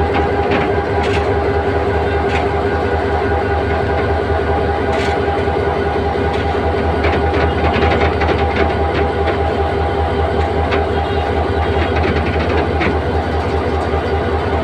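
A 1500 HP diesel locomotive's engine running steadily with a deep hum as the locomotive moves slowly along the track, with scattered clicks from the wheels on the rails.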